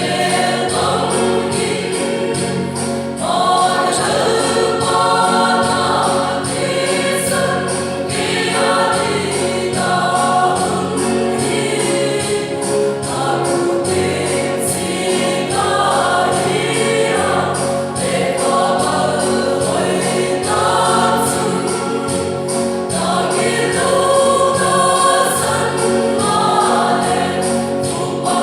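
A choir singing a gospel song with musical accompaniment and a steady beat.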